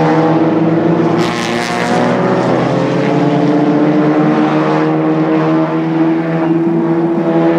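Several Audi TT Cup race cars' turbocharged four-cylinder engines running at high revs as they pull away down the straight, a steady multi-engine drone that dips slightly in pitch about two and a half seconds in. A brief hissing rush comes about a second in.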